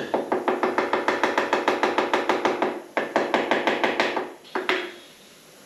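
Pneumatic vibrator on a foundry molding machine rattling rapidly, about eight knocks a second, shaking the pattern loose from the sand mold so it can be drawn. The rattle breaks off briefly near the three-second mark, runs on until just before the end, and finishes with one more knock.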